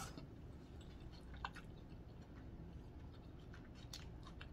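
Faint chewing of a mouthful of spaghetti with meat sauce, with a few soft wet mouth clicks; one click about one and a half seconds in is a little louder.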